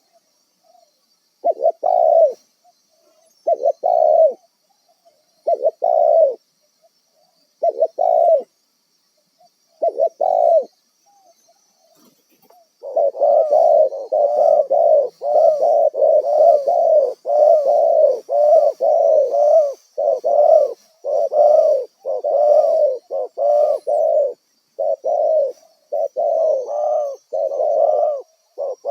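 Spotted dove (tekukur) cooing: separate coo phrases about every two seconds, then from about thirteen seconds in a dense run of coos following close on one another.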